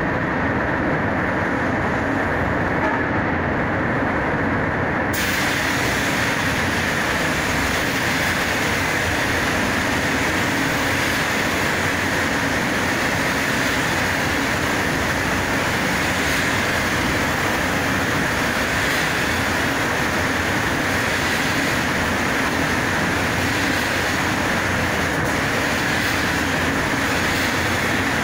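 Steady rush of a paint booth's ventilation fans, joined about five seconds in by the hiss of a spray gun's air as the clear coat is sprayed, holding steady after that.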